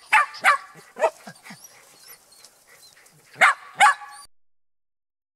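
Shetland sheepdogs barking in short, sharp, high yips: a quick run of barks, a lull with a few softer ones, then two loud barks before the sound cuts off suddenly.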